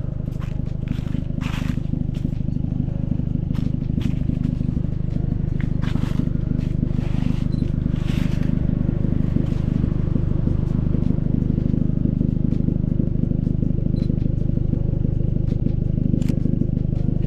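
A car driving at a steady speed: a constant engine and road drone, with scattered short clicks and scrapes over it, most of them in the first half.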